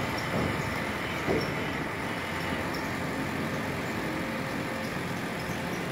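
Steady background rumble and hiss, with a brief soft knock about a second in.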